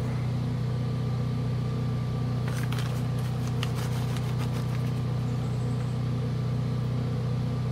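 Portable generator engine running with a steady, unchanging hum. A few light crinkles of a plastic cheese bag come around the middle as shredded mozzarella is scattered.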